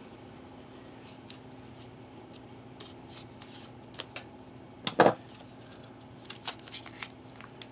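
Small scissors cutting open a plastic ration pouch: scattered snips and crinkles, with one sharp, loud snap about five seconds in and a few more clicks after it.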